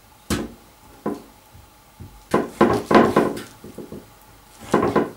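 Kitchen knife cutting through rabbit hind legs at the joint, the blade knocking on a wooden cutting board. There are single knocks about a second apart, a quick run of knocks in the middle, and one more near the end.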